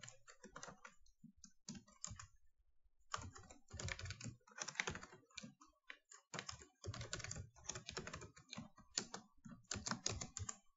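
Faint typing on a computer keyboard: runs of quick keystrokes, with a pause of about a second about two seconds in.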